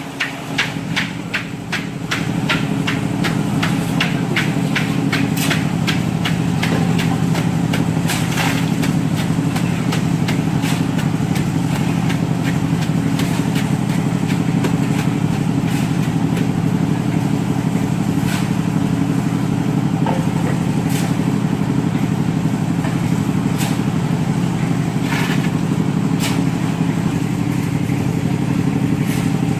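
An engine running steadily. It ticks rapidly for about the first two seconds, then grows louder and runs evenly, with scattered sharp clicks and knocks on top.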